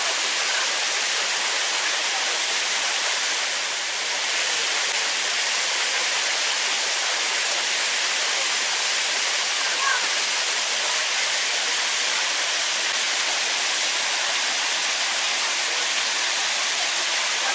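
Mountain stream running: a steady rushing of water.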